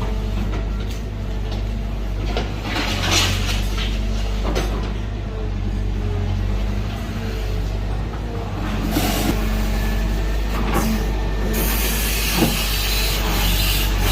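Heavy diesel construction machinery running with a steady low engine drone, with short hisses and rattles and a longer hiss over the last few seconds.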